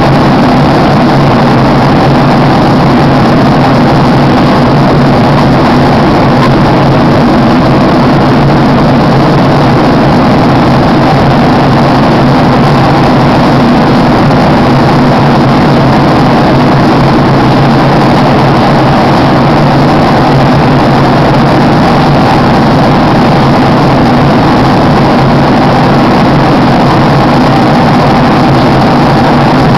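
Steady engine and airflow drone inside an aircraft cabin in flight, loud and unchanging, with a low hum running under the rushing noise.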